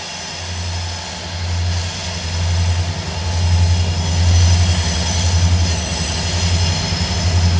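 Norfolk Southern diesel-electric locomotives on an approaching coal train, their engines running with a deep, steady drone that grows louder as they draw nearer.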